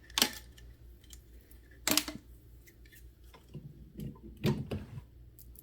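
Hard plastic parts being handled: two sharp clacks, about a quarter second and two seconds in, then a run of lighter clicks and taps.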